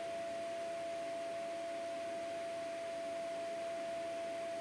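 A steady single-pitched whine over a faint even hiss, unchanging throughout.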